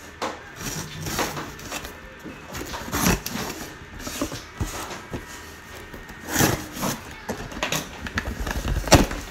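Cardboard shipping box being handled and opened by hand: irregular scrapes, rustles and knocks of the cardboard, the loudest about three, six and a half and nine seconds in.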